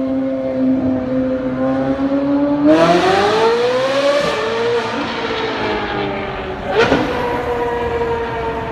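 Ferrari 458's V8 engine running at a steady note, then revving up sharply about three seconds in and easing off slowly, with one sharp crack near seven seconds in.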